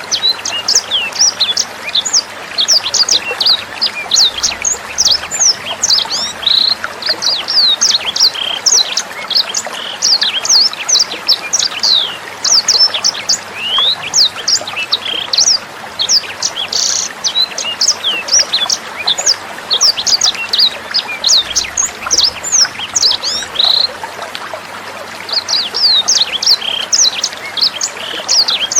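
Sanger songbird singing a rapid, unbroken stream of sharp high chirps and quick whistled slurs, over steady trickling water.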